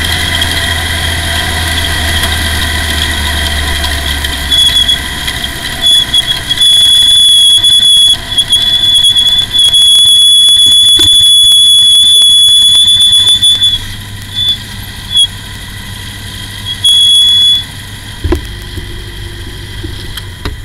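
Formula Ford race car rolling slowly with its engine running low. Over it a loud, steady, high-pitched squeal from the car comes and goes from about five seconds in, stopping a few seconds before the end.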